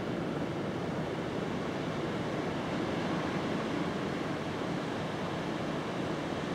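Distant sea surf: a steady, even rush of waves breaking on the shore.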